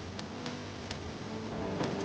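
Wood fire crackling: sharp, irregular pops over a steady hiss, with soft music fading in near the end.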